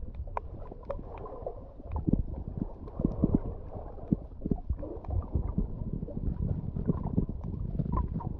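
Shallow sea water heard through a submerged GoPro HERO8's microphone: a muffled, uneven low rumbling and gurgling as water moves around the camera, with scattered faint clicks.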